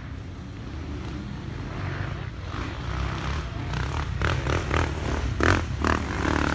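Enduro motorcycle engine running under throttle as the bike rides down the dirt track, growing slightly louder, with a few short, sharper sounds between about four and six seconds in.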